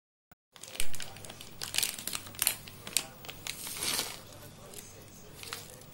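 Thin plastic bags crinkling and rustling as hands handle them, after a sharp knock about a second in; the crinkling is busiest between about two and four seconds in, then fades.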